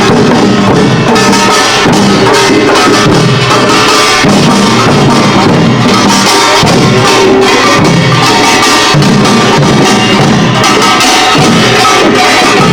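Korean pungmul percussion ensemble playing Imsil Pilbong nongak loudly: kkwaenggwari small gongs clanging over janggu and buk drum strokes in a dense, unbroken rhythm.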